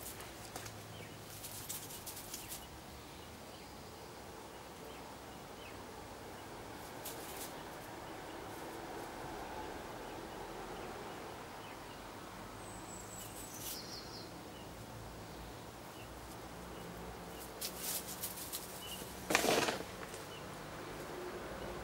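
Outdoor background hum with scattered light rustles and clicks, and a brief louder rustle or scrape near the end.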